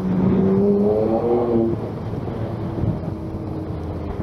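A motor vehicle in traffic gives a strong pitched engine or motor note for about the first second and a half, stepping up slightly in pitch, then fading to a fainter steady tone. Wind rumbles on the microphone throughout.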